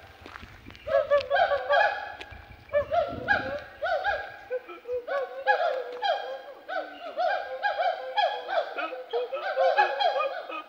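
Western hoolock gibbons singing: a long run of loud whooping calls, each note rising and falling in pitch, repeated several times a second, starting about a second in.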